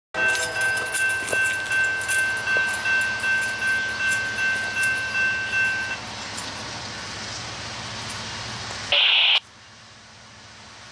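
Railroad grade-crossing warning bell ringing about two and a half strokes a second as the crossing gate lowers, signalling an approaching train; it stops about six seconds in. After that there is a fainter steady hiss, with one brief loud high-pitched blip near nine seconds.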